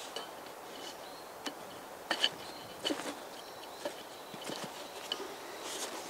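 Scattered light clinks and knocks as a steel frame-saw blade and its carved wooden arms are handled and set in place, the loudest a quick double clink about two seconds in. Some of the clinks leave a short metallic ring.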